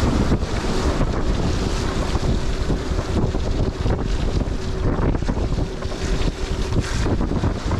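Wind buffeting the microphone of a moving electric scooter rider: a loud, unbroken rush with heavy low rumble.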